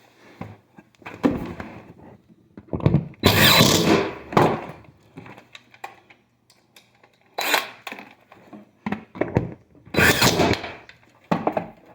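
Hands working with tools and parts: knocks and clatter mixed with rustling scrapes in about five short bursts. The longest and loudest burst comes about three seconds in.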